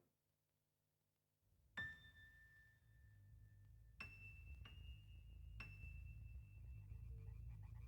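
Three clear, bell-like dings, each a single steady ringing tone that holds and slowly fades, the first lower than the other two, over a faint low rumble. Near the end a rapid pulsing croak of frogs begins.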